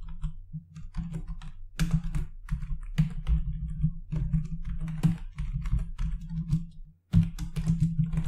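Typing on a computer keyboard: irregular runs of key presses with a brief pause about seven seconds in.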